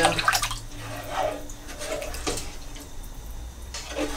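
A large spoon stirring creamy vegetable soup in a stainless steel pot, the liquid sloshing, with a few short knocks of the spoon against the pot.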